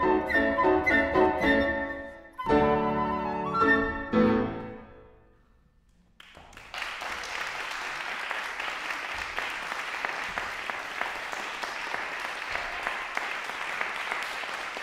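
Flute and grand piano play the closing bars, ending on a loud final chord about four seconds in that rings away. After a moment of near silence, audience applause breaks out and goes on steadily.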